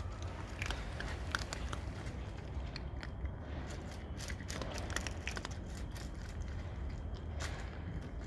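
Cats eating, with many irregular, quick crunching clicks of chewing over a steady low rumble.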